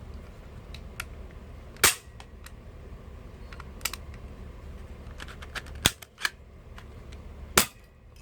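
Toy airsoft pistol (Glock-style) going off three times with sharp snaps, with fainter mechanical clicks of the gun being handled and cocked between the shots.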